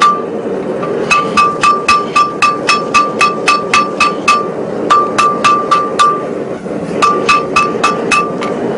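Hand hammer striking red-hot 4140 steel on an anvil: three runs of quick blows, about four a second, each with a bright metallic ring, separated by short pauses.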